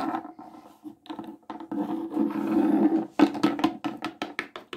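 A drawn-out vocal sound, held steady for about three seconds. Then a quick run of light taps, about six a second, as a small plastic toy pet figure is hopped across a tabletop.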